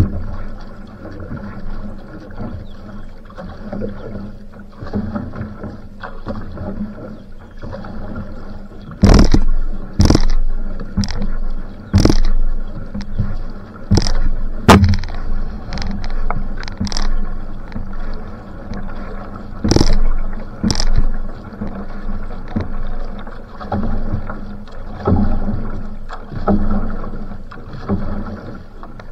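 Outrigger canoe (va'a) paddled hard at sprint effort: paddle strokes splashing in a steady rhythm, about one a second, over the rush of water along the hull. Sharp knocks, the loudest sounds, land every so often, most of them in the middle.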